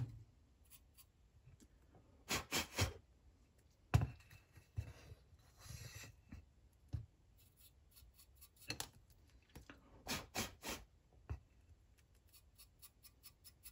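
A paintbrush scrubbing and dabbing dry weathering powder onto a plastic HO-scale model tank car, with scattered light taps and clicks from handling the car and brush, twice in quick runs of three.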